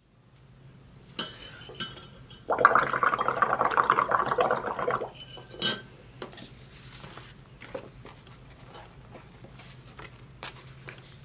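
Blowing through a metal straw into a cup of soapy blue paint, bubbling for about two and a half seconds as the froth rises. The straw clinks against the cup twice before and once after.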